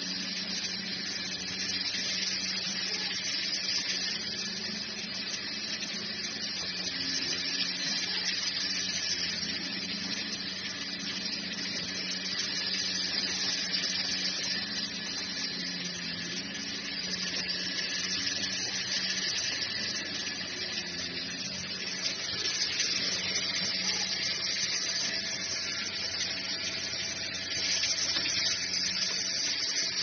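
Vertical band sawmill running, its band blade sawing through a log as the carriage feeds it: a steady hiss over a low motor hum.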